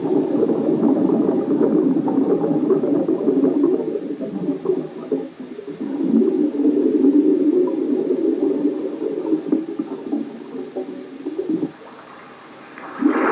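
Underwater bubbling and gurgling of divers' exhaled air. It comes in two long stretches with a brief lull about five seconds in, and dies down sharply near the end.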